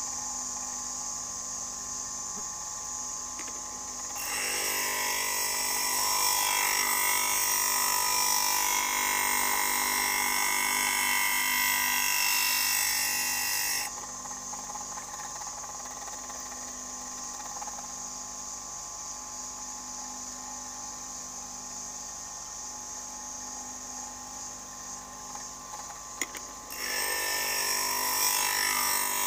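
Small electric grinder's motor spinning its grinding wheel with a steady high whine, while a carbide-tipped planer blade is ground against the wheel. The grinding adds a louder hiss from about four seconds in until about fourteen seconds, and again near the end.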